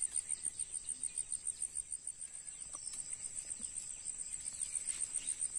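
An insect chirping in a steady, high-pitched, pulsing rhythm, about six or seven pulses a second.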